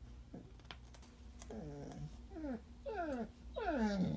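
Pit bull puppy crying while eating a carrot: a run of short whining cries, each falling in pitch, the last and loudest near the end.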